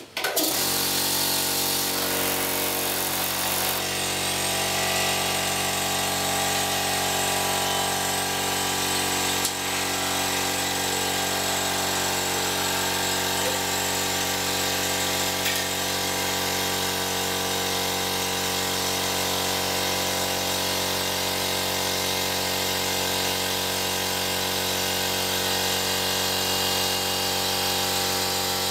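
Small portable electric air compressor switched on, its motor starting suddenly and then running steadily with an even mechanical drone as it pumps up its tank.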